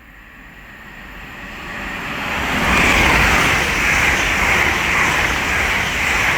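LNER Class 801 Azuma electric multiple unit approaching and passing at speed on the main line: a rushing noise of wheels on rail and air that builds over about three seconds, then stays loud and steady.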